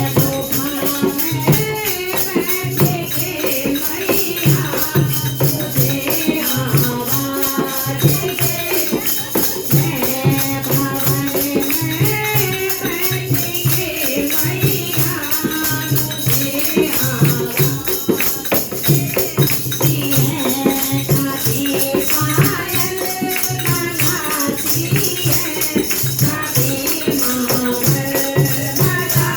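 Devotional bhajan music with a steady, even beat, continuous jingling shaker or tambourine-like percussion, and a winding melody line above it.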